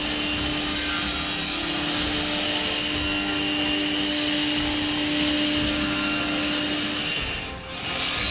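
Circular saw blade of a combination woodworking machine running through wood, a steady cutting noise with a constant hum under it that eases off near the end.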